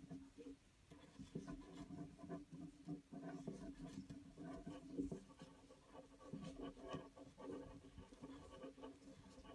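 Faint scratching and light irregular clicks of a crochet hook working cotton yarn, single crochet stitches made one after another, over a faint steady low hum.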